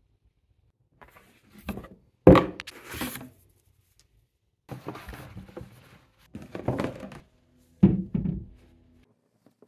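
Unboxing handling noises: a sharp thunk about two seconds in, then several bursts of rustling and scraping as the cardboard box and a fabric dust cover are handled. A second knock comes near the end.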